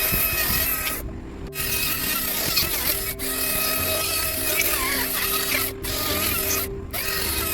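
A power tool running on wood under background music, dropping out briefly twice.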